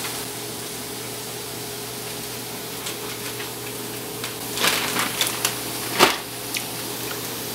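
Hash browns frying in a pan with a steady sizzle. A few sharp clatters and knocks of handling come near the middle, the loudest about six seconds in.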